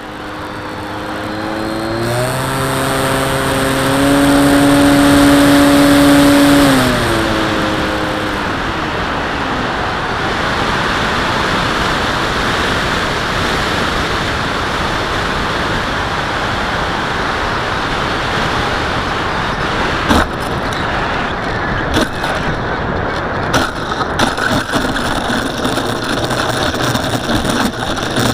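Skyhunter RC plane's electric motor and propeller heard from on board: a steady pitched tone with a high whine rises in, holds, then winds down about seven seconds in as the throttle is cut. Wind rushes past while it glides. A few sharp knocks come around twenty seconds in as the wheels touch down, then rattling as it rolls along the ground.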